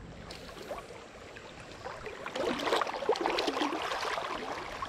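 River current running over shallow riffles, getting louder about two seconds in.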